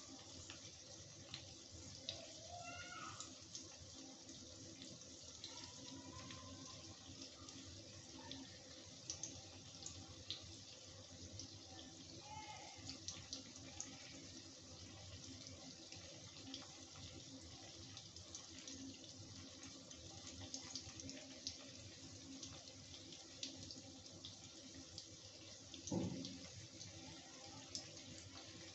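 Paneer cubes frying in mustard oil in a kadhai: a quiet, steady sizzle with scattered small crackles and pops. A single dull knock near the end.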